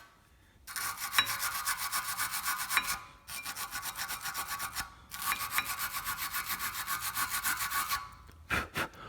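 Quick back-and-forth scrubbing of the metal pad slide surfaces on a car's front brake caliper bracket, cleaning off rust and grime before new pads go in. It comes in three spells with brief pauses, followed by a couple of short knocks near the end.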